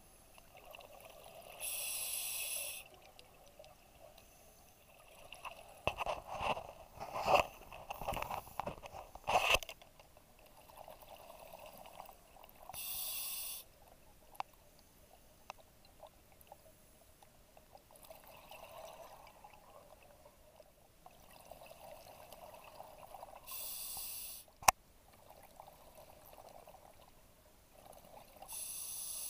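Scuba diver breathing through a regulator underwater: four short hissing inhalations roughly ten seconds apart, each followed by a long gurgle of exhaled bubbles, loudest and choppiest about six to ten seconds in. One sharp click near the end.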